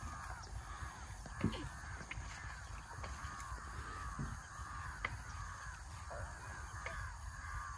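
Birds calling: a steady chorus of short, arched calls repeating about twice a second. There are a couple of faint knocks, about one and a half and four seconds in.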